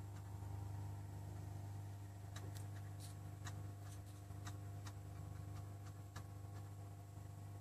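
Steady low electrical hum, with a scattering of faint sharp clicks in the middle.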